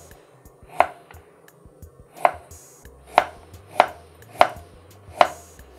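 A kitchen knife slicing a carrot into rounds on a wooden cutting board. There are six sharp chops of the blade going through the carrot onto the board, at uneven gaps of about a second.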